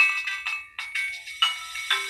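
A Nokia X1-01 ringtone playing: a quick synthesized melody of short struck notes, about six or seven in two seconds, each dying away.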